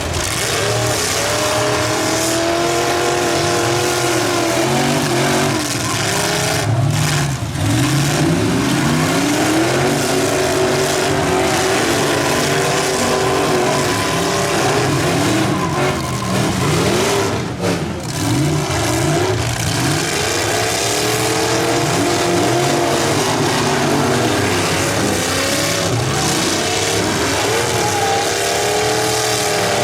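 Several demolition derby vehicles' engines revving up and down at once, overlapping and continuous.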